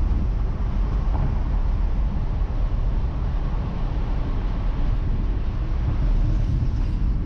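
Steady wind rush and road noise heard in the open cabin of a Porsche Boxster 981 cruising with the top down, with its engine running underneath; the rumble is heaviest in the low end and never rises or falls much.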